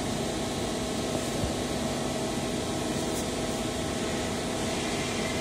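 Steady mechanical hum over an even hiss, with no change in pitch or level, like a machine or ventilation running in the workshop; it cuts off abruptly at the very end.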